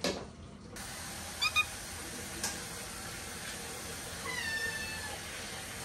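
A house cat meowing: two short chirping calls about a second and a half in, then a longer meow a little after four seconds in that drops in pitch and then holds.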